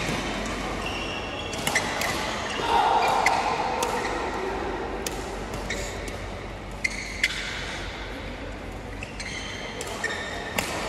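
Busy sports-hall sound: sports shoes squeak sharply on the court floor several times, mixed with sharp knocks and faint voices echoing in the large hall.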